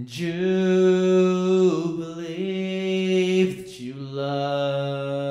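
Male voice singing long held notes with no accompaniment. There is a short break about three and a half seconds in, then a lower note is held.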